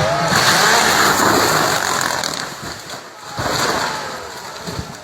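Car crash: a loud rush of crashing noise lasting about two seconds, right after an engine's rising and falling note, then a second, shorter burst of noise just past the middle.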